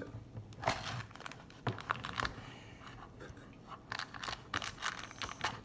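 Toy blind-bag packaging being handled and opened, crinkling and crunching in short irregular bursts with small clicks.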